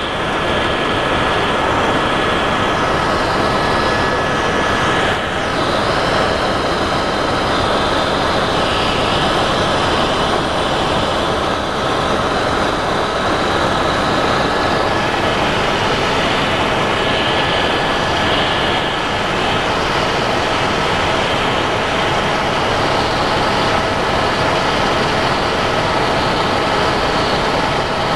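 Helicopter cabin noise in flight: a steady, loud rush of rotor and turbine, with a few steady high tones running through it.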